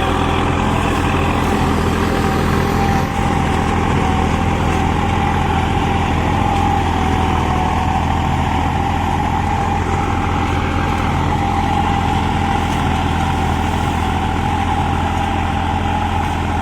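New Holland 5620 tractor engine running steadily at about 1800 rpm in first low gear while pulling a super seeder, with a steady whine over the engine note.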